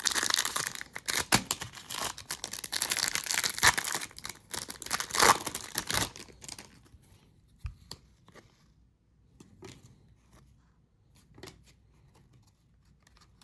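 Wrapper of a 2021-22 Upper Deck hockey card pack being torn and crinkled for about six seconds, then only sparse, soft clicks of cards being handled.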